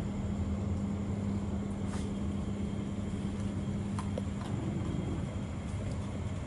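A steady low hum, like a machine or electrical hum, with a few faint sharp clicks as two dogs eat from a plastic bowl.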